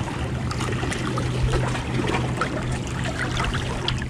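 Shallow water sloshing and trickling, with many small splashes, as a red drum is held in the shallows to revive it after release. A steady low hum runs underneath.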